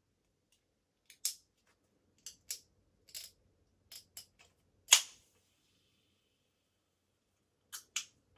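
Ring-pull of an aluminium Sprite can being clicked and pried at several times, then cracking open about five seconds in with one sharp snap and a brief fizz. Two more light clicks of the tab come near the end.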